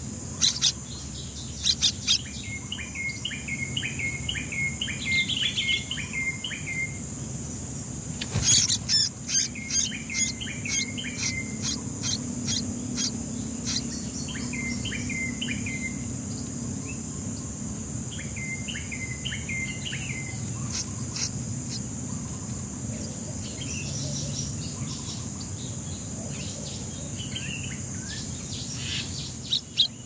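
Songbird nestlings begging at the nest with sharp, rapid high cheeps, loudest at the start, about eight seconds in and again at the very end, with trilled runs of chirps in between. A steady high insect drone runs underneath.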